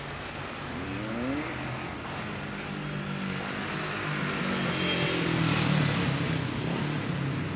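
A motor vehicle passing by: a brief rise in engine pitch, then a steady engine sound that grows louder to a peak near the end and starts to fade.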